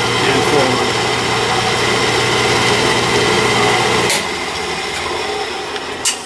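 Harbor Freight reversible electric motor running steadily with a hum and whine, just wired for forward and reverse. Just after four seconds in it is switched off and winds down, and a sharp click follows about six seconds in.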